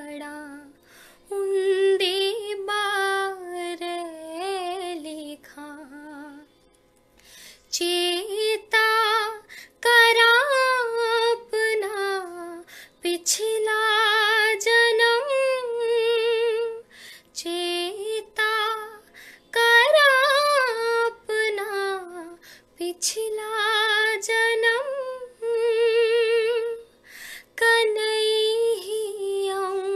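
A woman singing a Dogri song solo and unaccompanied, in long melodic phrases with vibrato on the held notes. There is a brief pause for breath about six seconds in.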